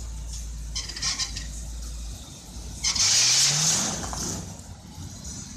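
Big vintage American sedan moving off over cobblestones: its engine rises in pitch as it accelerates about three seconds in, together with a loud hissing rush. Before that there is a steady low engine rumble, with a few clicks around one second in.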